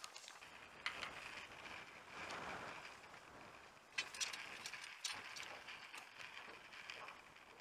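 Faint scattered clicks and knocks from gear being handled on a boat deck, over a soft hiss of wind.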